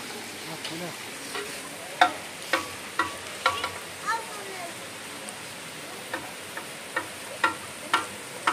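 A dense shoal of fish churning and splashing at the water surface: a steady sizzling hiss of agitated water, with sharp irregular slaps and pops from about two seconds in.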